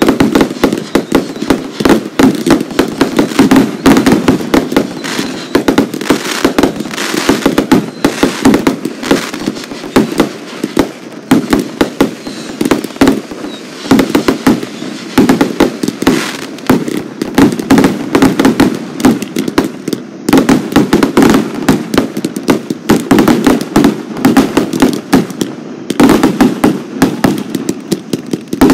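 Aerial fireworks display: a dense, continuous barrage of shell bursts and crackling reports, many bangs a second with hardly a pause.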